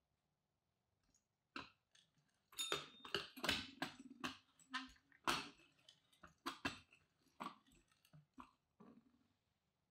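Brass desk call bells being shuffled by hand on a smooth board: an irregular run of clacks, knocks and short scrapes as their black bases are lifted, set down and slid about. It starts about a second and a half in and is busiest in the middle.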